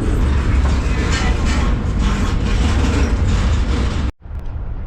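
Freight train rolling, heard from aboard a car: a loud, steady rumble and rattle that cuts off suddenly about four seconds in.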